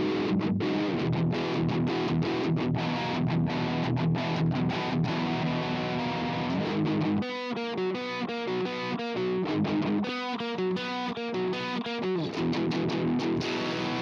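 Distorted electric guitar part, a DI recording played back through the Blue Cat Audio Destructor amp-simulator plugin, its tone changing as amp-head presets are switched. About seven seconds in the low end drops away and the sound turns thin, then fills back out about twelve seconds in.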